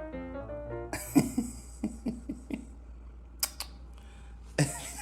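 Short piano music phrase, a run of single held notes that ends about a second in. It is followed by a few brief vocal sounds and a couple of sharp clicks.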